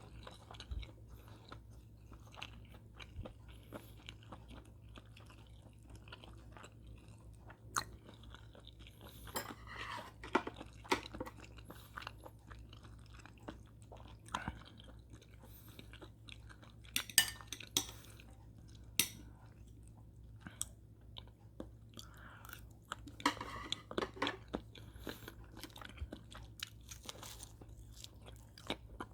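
A person chewing and crunching food, with scattered sharp clicks and light clinks.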